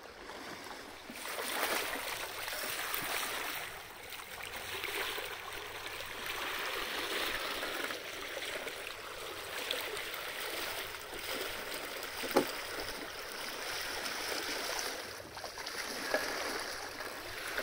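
Water rushing and hissing along the hull of a sailing yacht under way, swelling and easing every few seconds, with a single sharp knock about twelve seconds in.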